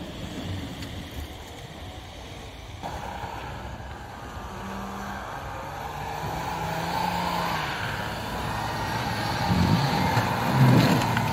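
Off-road 4x4 SUV engine working hard as the vehicle drives through deep snow, growing louder toward the end as it approaches.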